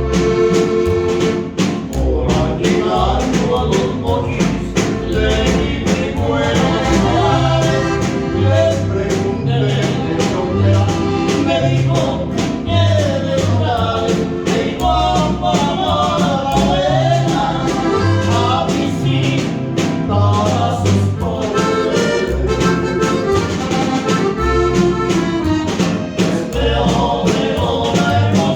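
A song: a singer over a band with a pulsing bass line and a steady beat.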